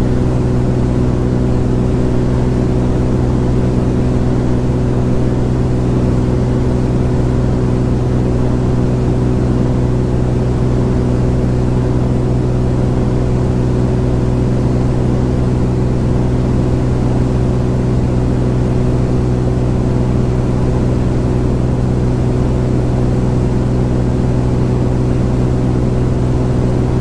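Beechcraft G36 Bonanza's six-cylinder engine and propeller running at a steady drone in flight, heard inside the cabin, with no change in pitch or level.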